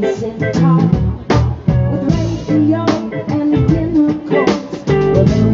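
Live band playing a song: drum kit on a steady beat under guitar and bass.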